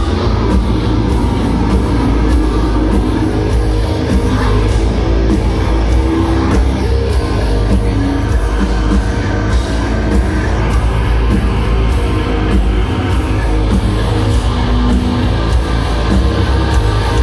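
Heavy metal band playing loud, with distorted guitars, heavy bass and drums keeping a steady pounding beat.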